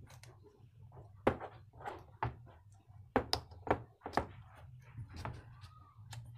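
Plastic bottle-cap wheels handled and pushed onto a wooden skewer axle: a scattered series of short, sharp plastic clicks and knocks, the loudest a little over a second in, over a steady low hum.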